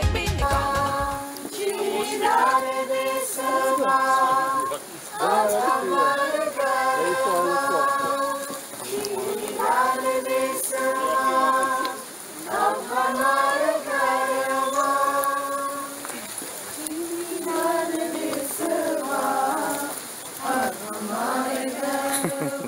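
Several voices singing a melody together without instruments, in phrases of two to three seconds with short breaks between. A piece of electronic music with a heavy beat cuts off about a second in.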